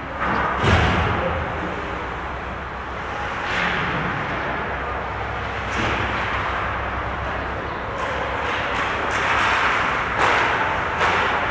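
Ice hockey rink sounds close to the net: skates swishing and scraping on the ice several times over steady rink noise, with a louder thump about a second in.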